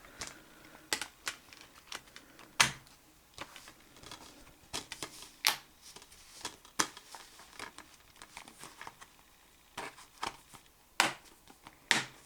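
Plastic Blu-ray case and disc being handled: scattered light clicks and taps, with a few sharper clicks about two and a half seconds in and twice near the end.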